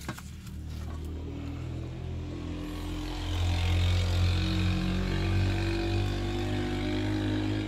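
A motor engine running steadily, a low hum that gets louder about three seconds in.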